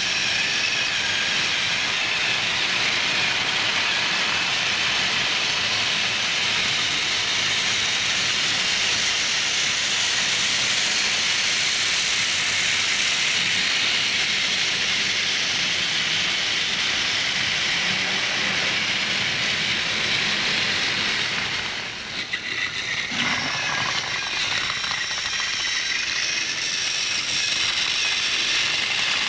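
Battery-powered toy trains running on plastic track: a steady whirring hiss of small motors and gears, with the wheels and couplings rattling. It drops briefly about three-quarters of the way through, then picks up again.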